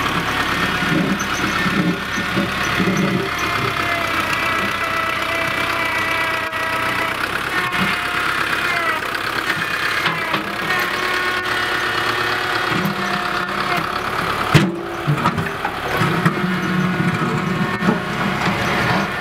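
Engine of heavy construction machinery running steadily at idle, with one sharp knock about fourteen and a half seconds in.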